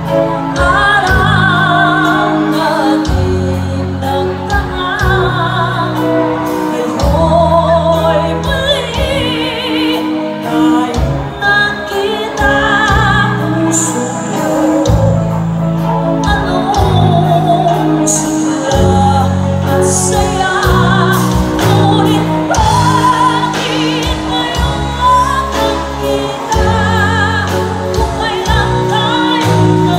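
Live band performing a song: a woman's lead vocal with a wavering vibrato over electric guitar, keyboards, a low bass line and a drum kit keeping a steady beat.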